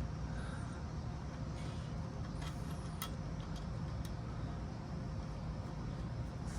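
A few light clicks and taps as a part is fitted back onto a 1966 Harley-Davidson M50, over a steady low hum.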